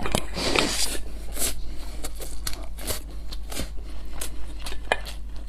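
A person eating close to the microphone: irregular soft smacks and clicks of chewing.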